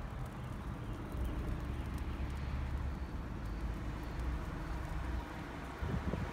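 Steady low outdoor rumble, with wind starting to buffet the microphone in uneven low gusts near the end.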